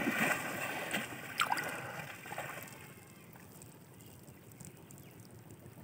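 Shallow water splashing and sloshing as hands churn and throw it, loudest over the first two seconds with one sharp splash, then settling to faint trickling.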